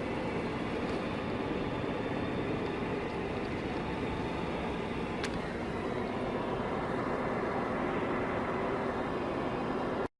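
Steady road and engine noise of a car driving, heard from inside the cabin. The sound drops out for an instant near the end.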